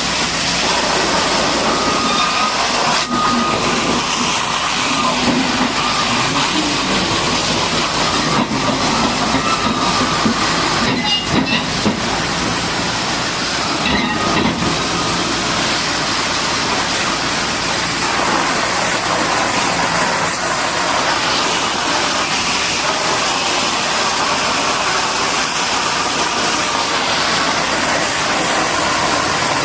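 High-pressure water jet spraying onto a bulldozer: a steady, loud hiss.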